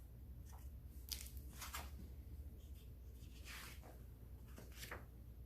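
Faint rustling of paper as the pages of a picture book are handled and turned: several soft swishes over a low steady hum.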